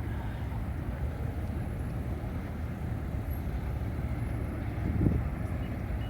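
Steady low rumble of road traffic and heavy construction vehicles, with a brief louder surge of rumble about five seconds in.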